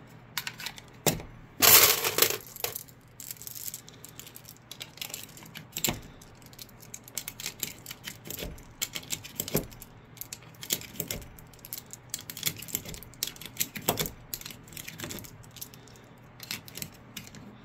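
UpLULA magazine loader at work on a 9mm Glock magazine: a string of irregular sharp clicks and clacks as the loader's handle is squeezed and 9mm cartridges are pushed in one at a time, with brass cartridges clinking. A louder, longer rattling clatter comes about two seconds in.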